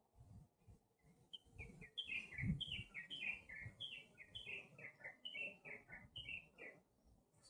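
A small bird chirping fast: a run of short, high chirps in quick groups, each group stepping down in pitch, about three to four chirps a second. It starts about a second in and stops shortly before the end, over faint low thuds.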